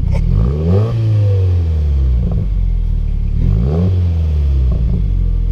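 A 2017 Subaru WRX's turbocharged flat-four is revved twice from idle through a Tomei catback exhaust, each rev rising and falling back to idle. A few light crackles come through as the revs drop.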